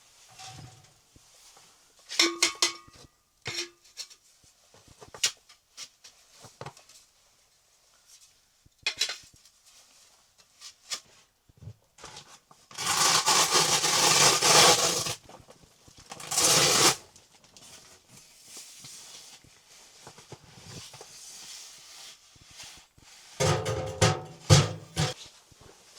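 Objects being handled: scattered knocks and clinks with rubbing, a long scraping or rushing noise of about two seconds around the middle, a shorter one soon after, and a cluster of knocks and thuds near the end.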